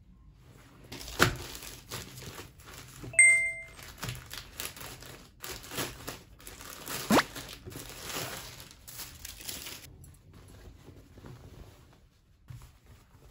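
Thin white packaging crinkling and rustling as a garment is unwrapped and handled, with a couple of sharp clicks, stopping about ten seconds in. A short, bright electronic tone sounds about three seconds in and is the loudest thing.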